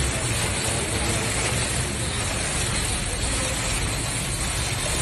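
Steady background din of a busy food stall, an even rushing noise with no distinct knocks or clatter.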